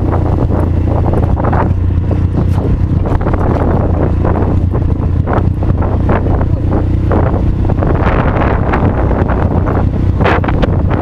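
Quad bike (ATV) engine running steadily while riding over a rough dirt track, with heavy wind buffeting the microphone and frequent short knocks from the jolting ride.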